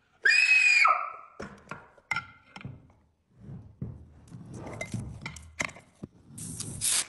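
A short, loud, high-pitched scream, the shark puppet's scream voice, lasting under a second just after the start. It is followed by scattered knocks, thuds and handling clatter, with a brief hiss near the end.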